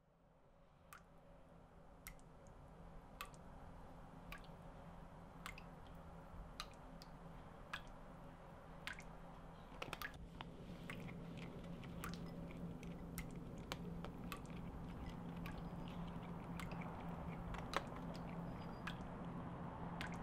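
Water dripping from a kitchen faucet, about one drop a second, over a low steady hum that fades in and grows. Later the clicks come thicker and less regular, fitting a cat crunching food from a bowl.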